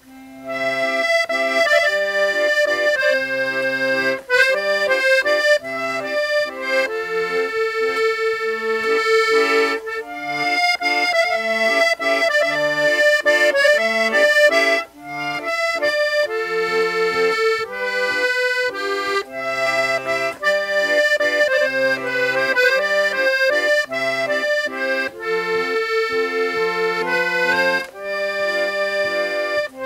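Accordion playing a tune: a moving melody over an alternating low bass note and chord accompaniment.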